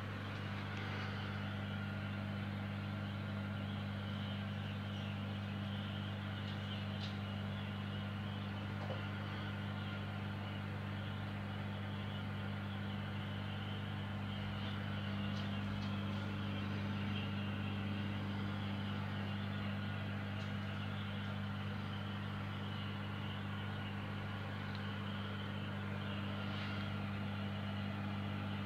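Steady, unchanging low electric hum with a fainter hiss above it, from the running pumps and filtration of a large aquarium.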